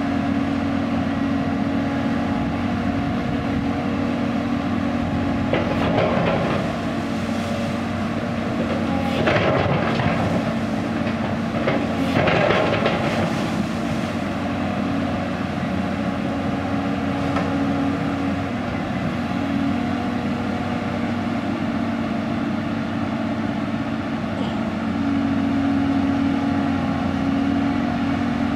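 Caterpillar 320D excavator's six-cylinder diesel engine running steadily as the hydraulics work the boom and bucket. Louder noisy stretches come about 6, 9 and 12 seconds in.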